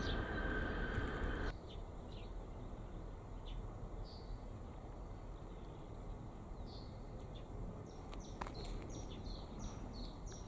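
The crossing's AŽD electronic warning bell (ZV01) sounds a steady electronic tone that stops suddenly about a second and a half in. Faint bird chirps follow over a quiet rural background.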